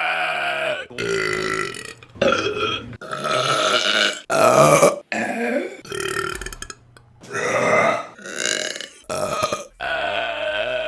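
A rapid string of about ten separate women's burps, each a second or shorter and cut straight into the next, with a quieter pause about six to seven seconds in.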